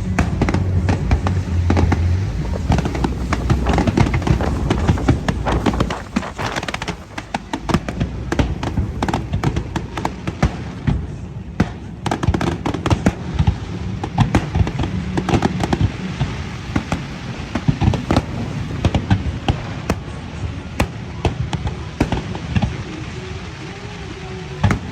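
Aerial fireworks bursting and crackling in rapid succession, densest and loudest over the first six seconds, then thinning to scattered pops and cracks.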